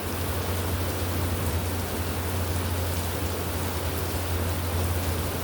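Steady heavy rainfall, an even hiss with a constant low rumble underneath.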